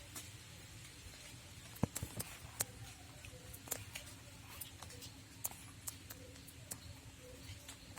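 Faint scattered clicks and light taps of small objects being handled, with a sharper tap a little under two seconds in.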